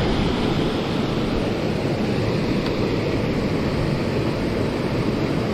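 Steady rush of river water tumbling over a waterfall and rapids, loud and even throughout.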